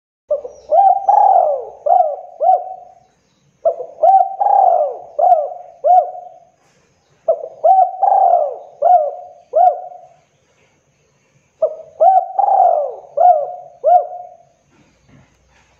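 Spotted dove (tekukur) singing its cooing song: four phrases of about five rolling coos each, with short pauses between the phrases.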